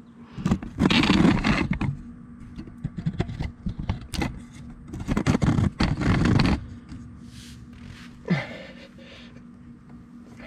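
A man's heavy, strained breathing close to the microphone: several long, loud breaths and a short grunt near the end, as he strains to twist a stuck spin-on oil filter loose by hand.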